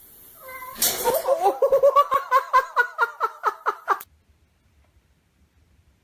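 Cat caterwauling in a rapid string of short, wavering yowls, about six a second, that cut off suddenly about four seconds in.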